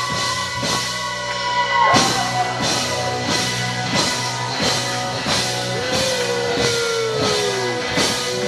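Live rock band playing: electric guitars and bass over a drum kit beating steadily, about three hits a second. A note bends down about two seconds in, and a long held note slides down in pitch near the end.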